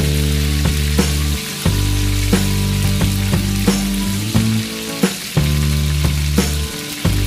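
Sizzling like food frying in a hot pan, over music with held low notes that change every second or two and a regular beat of sharp ticks.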